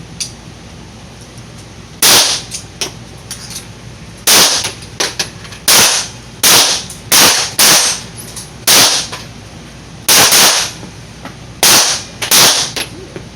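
Pistol shots from several shooters firing at once on a range: about a dozen loud, sharp reports at irregular spacing, starting about two seconds in, some coming in quick pairs.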